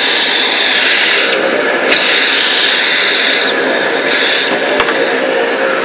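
Dust collector running, pulling air through a CNC router dust boot with a steady loud rushing hiss. The upper part of the hiss shifts and drops back a few times.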